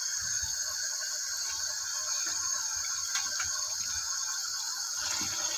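Tap water running steadily into a stainless steel sink and over a plastic-wrapped frozen chicken, with a few soft knocks and crinkles as the bag is handled under the stream.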